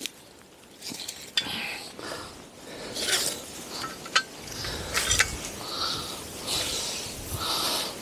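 A trail camera being unfastened from its bike-lock tree mount: a string of metal clicks and clinks with rustling of the strap and brush between them. Wind buffets the microphone from about halfway through.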